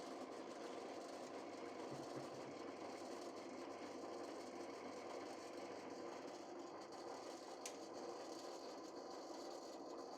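A small machine motor running steadily with an even hum.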